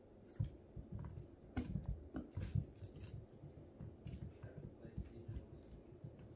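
A puppy scrabbling and pouncing on a mesh elevated dog cot while playing with a ball: irregular scratchy clicks and soft thumps, busiest around two seconds in.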